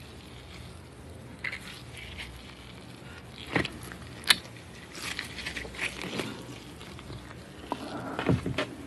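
Hands working the tough skin off a raw geoduck clam's siphon, close-miked: irregular wet crackles and clicks, the sharpest about halfway through and a cluster near the end.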